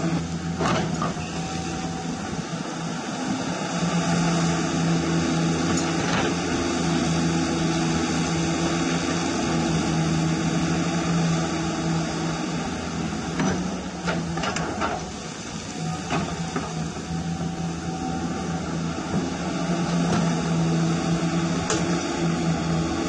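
Hydraulic pump motor of a radio-controlled model CAT 336 excavator running with a steady whine that drops out and comes back several times as the boom, arm and bucket are worked. A few sharp clicks come through along the way.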